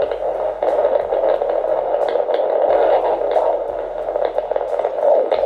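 Handheld fetal Doppler's speaker playing an unborn baby's heartbeat: a fast, steady pulsing whoosh over static hiss, about twice as fast as an adult heartbeat.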